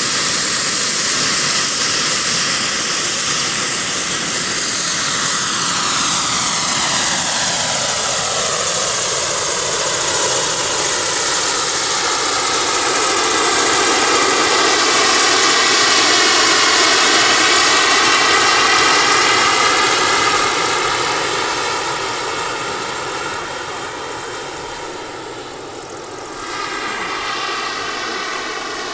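Model gas-turbine engine and rotors of a large RC SA 315B Lama jet helicopter, running with a steady high whine as it lifts off and flies, the tone sweeping as it moves. The sound fades from about two-thirds of the way through as it climbs away, then swells a little again near the end.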